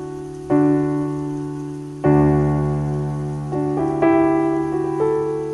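Slow, gentle piano music: chords struck every second or so, each ringing on and fading.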